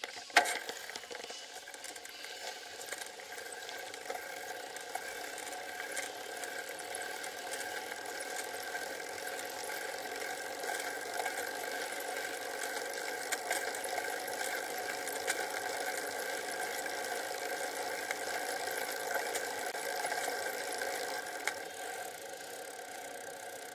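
Riding noise picked up by a bicycle-mounted Cycliq camera: a steady hum with small rattles and ticks from the bike and mount over the road, and a sharp knock about half a second in.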